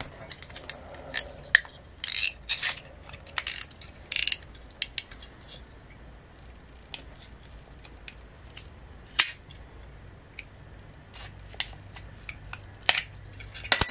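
A small screwdriver and a utility knife prying and scraping at a small plastic-and-metal piece of a keychain flashlight, making irregular clicks, scrapes and small snaps. These come in clusters in the first few seconds and again near the end, with only scattered ticks between.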